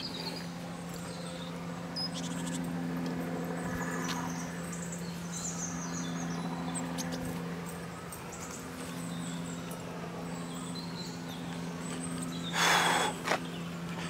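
Outdoor woodland ambience: faint scattered bird chirps over a steady low hum, with one short loud burst of noise near the end.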